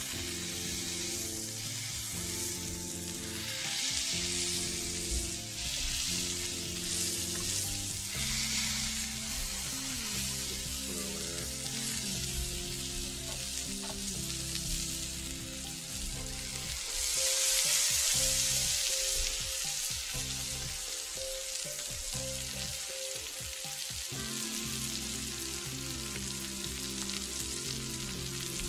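Smash burger patties of ground brisket-trimming beef sizzling steadily on a hot cast-iron griddle over charcoal. The sizzle swells loudest about two-thirds of the way in. Background music plays underneath.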